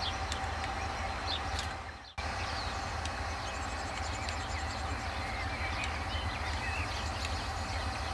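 Distant KiwiRail diesel-electric locomotives running steadily at low power as the milk train pulls away slowly, with birds chirping faintly over it.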